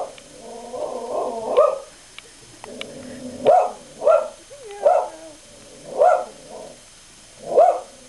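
A dog barking repeatedly, about six short sharp barks spaced roughly a second apart, with a short falling whine about halfway through. It is barking in alarm at its own reflection in a mirror.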